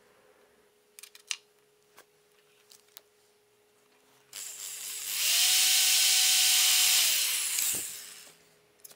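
A drill, its bit run through a stainless-steel pipe guide seated in a hinge's screw hole, boring a centred pilot hole into the wood. It starts about four seconds in, runs steadily for a couple of seconds, then falls in pitch and stops near the end. Before it come a few small clicks as the guide is handled.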